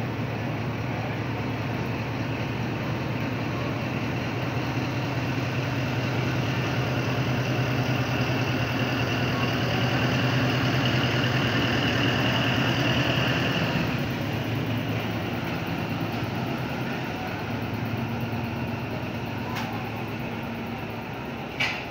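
A heavy railway locomotive's engine running as it rolls slowly past, a steady low drone that builds to its loudest about halfway through and then fades. A short sharp click comes near the end.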